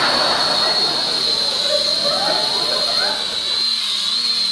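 Small quadcopter drone's motors and propellers spinning fast while it is held in the hand: a steady high whine over a rush of air, the lower rush easing a little near the end.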